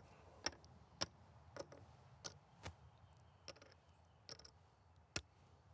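Mancala pieces dropped one at a time into the board's pits as a player sows a move: faint, separate clicks, about ten of them, irregularly spaced.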